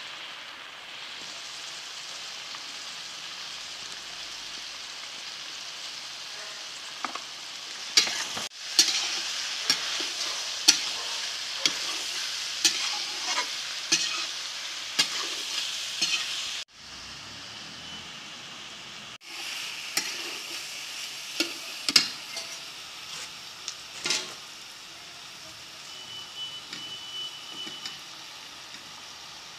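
Eggplant slices sizzling as they fry in a steel kadai, with a metal ladle scraping and knocking against the pan as they are stirred. The knocks come thickest in the middle of the stretch and again a little later.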